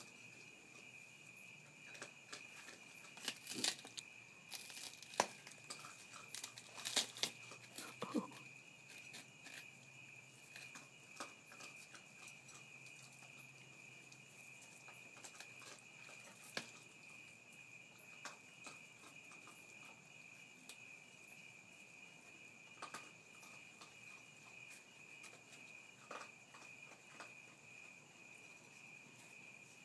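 Raccoon cubs chewing and crunching on garden plant leaves and stems. Crisp crackling crunches come thickest a few seconds in, then sparser clicks, over a steady high insect trill.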